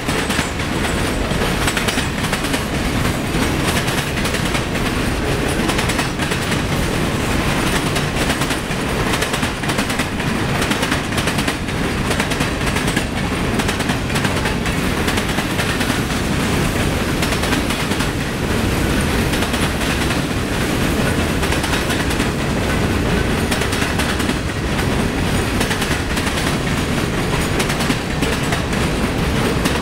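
Freight train's covered hoppers and boxcars rolling past, steel wheels running on the rails in a steady, loud noise.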